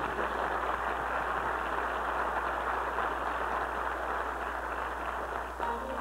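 Audience applauding, a dense, even clapping that stops near the end, over a steady low hum.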